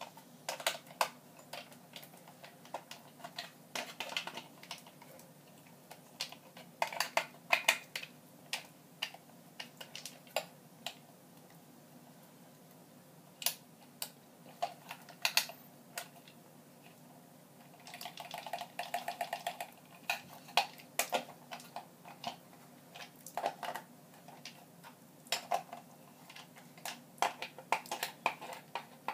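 Small plastic parts of a Nerf Elite walkie-talkie clicking and clattering as it is taken apart and its pieces unscrewed by hand. Scattered sharp clicks come in quick clusters, with a short stretch of scraping about two-thirds of the way through.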